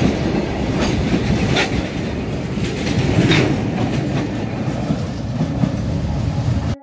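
Open-top freight wagons of a goods train rolling past close by: a steady heavy rumble of wheels on rail, with a couple of sharper clacks as wheels cross the rail joints.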